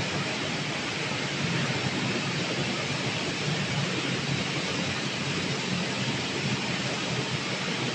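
Steady machinery noise of a breadcrumb processing line running: an even hiss of fans and motors over a low steady hum.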